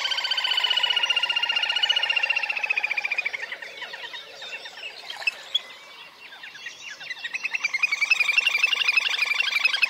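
Little grebe giving its whinnying trill: a long, rapid trill that falls slightly in pitch and fades out about three seconds in, softer trilling after it, then a second trill swelling up from about seven seconds in.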